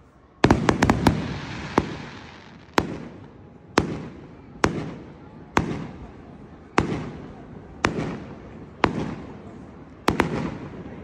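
Aerial fireworks display: a quick cluster of loud bangs about half a second in, then single shell bursts about once a second, each trailing off in echo.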